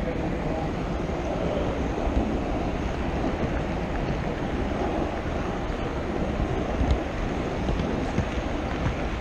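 HO scale model train rolling along the track, a steady rumble of small wheels on the rails heard from the camera riding on the train, with a few light clicks.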